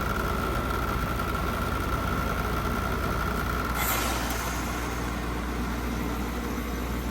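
2025 Carrier Comfort A2L heat pump outdoor unit running with a steady hum and a high, steady whine. About four seconds in, a brief hiss sounds, the whine stops and a lower steady tone takes over.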